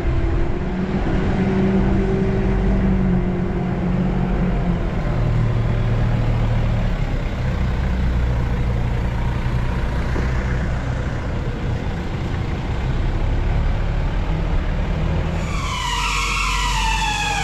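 Diesel forklift engine running as it carries a load across the yard, its pitch shifting as it drives. About fifteen seconds in, a run of higher tones that step up and down comes in over the engine.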